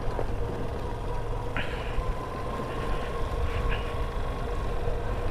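Motorcycle riding along, its engine running as a steady drone under a low wind rumble on the microphone, with two brief high chirps about one and a half and three and a half seconds in.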